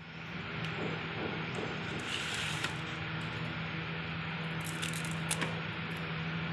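Masking tape crinkling as it is handled and peeled off the painted tin snip blades, in two short rustling spells about two and five seconds in, over a steady low hum and hiss.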